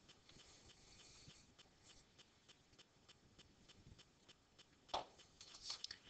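Near silence: room tone with faint, evenly spaced ticking, about four or five ticks a second, and a slightly louder click about five seconds in.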